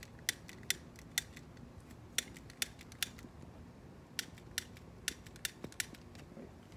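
Long-nosed utility lighter's piezo igniter clicked over and over, a dozen or more sharp clicks about two a second with short pauses, as someone tries to light charcoal briquettes in a grill; the lighter is not catching well.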